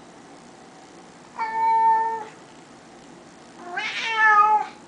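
Domestic cat meowing twice, two drawn-out meows each just under a second long and about two seconds apart. The first is held at one pitch, and the second slides up in pitch as it begins.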